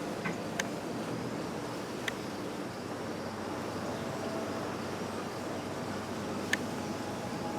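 Steady, even rumble of a distant jet aircraft passing overhead, with a few short, sharp ticks.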